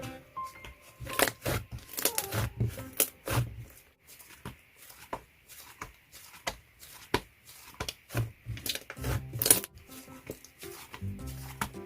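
Wood-glue-based slime being squished and stretched, giving many irregular sticky clicks and pops.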